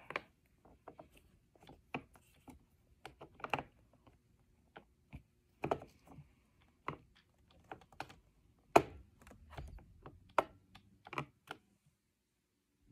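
Irregular small plastic clicks and knocks as a new roller brush and its end caps are handled and fitted into the cleaning head of a Roomba 675 robot vacuum, with one sharper knock about nine seconds in.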